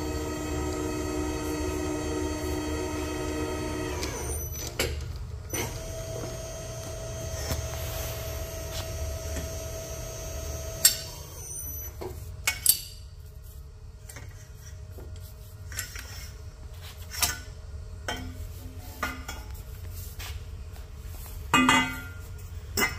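Nargesa CC90 tube bender running through a 37-degree bend: a steady motor hum with a whine. It breaks off briefly about four seconds in, then runs again until it stops with a sharp clank about eleven seconds in. Then come the clanks and knocks of the bent tube being freed from the die and handled, with a louder knock near the end.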